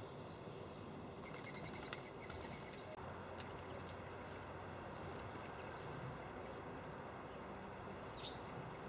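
Small birds giving short, faint high chirps and calls now and then, with a few light clicks, over a steady outdoor background hiss.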